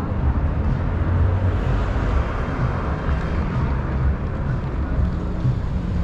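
Car engine and road noise of street traffic: a steady low rumble with a swell about two to three seconds in, as of a car passing.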